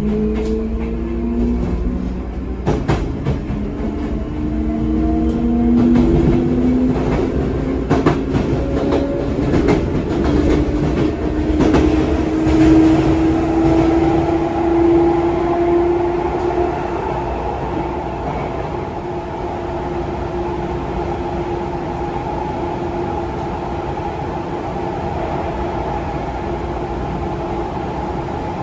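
Running sound inside a Sotetsu 9000 series electric train: the motor whine climbs slowly in pitch as the train gathers speed, with sharp wheel clicks over the rails. About halfway through it settles into a steady hum at cruising speed.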